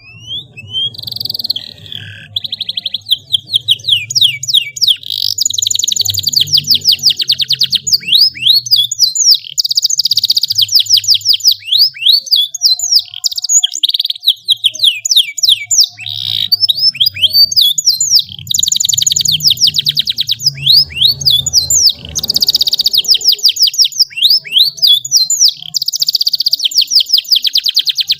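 Domestic canary singing a long, continuous song of rapid trills and repeated sweeping notes, with a few short pauses between phrases.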